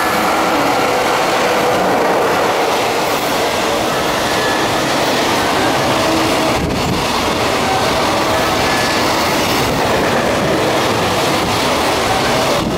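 Container freight train hauled by an EF66 electric locomotive passing through a station at speed without stopping. The wagons' wheels on the rails make a loud, steady rush.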